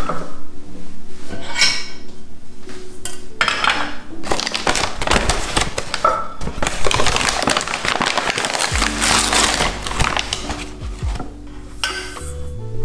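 A metal measuring cup clinking and granulated sugar rustling as it is scooped from a paper bag and poured into a stainless steel saucepan, with a few sharp metallic knocks.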